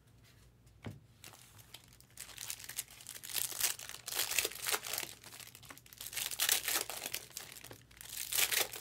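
A trading-card pack wrapper crinkling and tearing as a pack is opened, with the cards rustling in the hands. It starts about a second in, after a single click, and goes on in quick irregular rustles.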